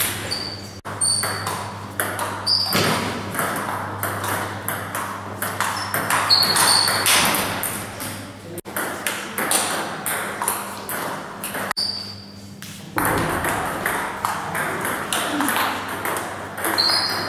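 Table tennis being played: the ball clicking repeatedly off the bats and the table in quick rallies.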